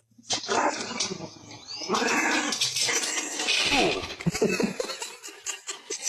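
A dog vocalizing in a continuous run of noises, with short falling whines near the middle.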